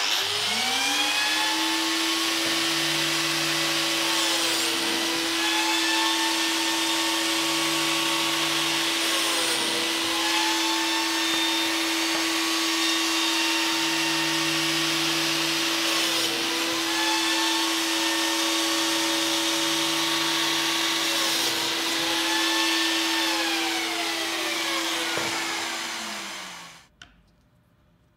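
Lamello Classic X biscuit joiner running, over a steady hum of dust extraction. The motor's whine dips in pitch four times as the blade plunges into the wood, then winds down and stops near the end.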